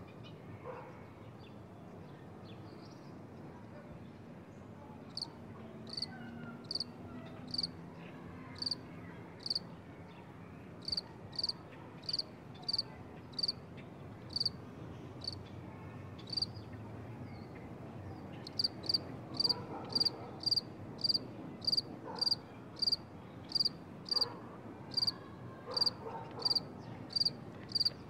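An insect chirping: short high-pitched chirps starting about five seconds in, uneven at first, then settling into a steady rhythm of about two a second. A faint low background rumble lies underneath.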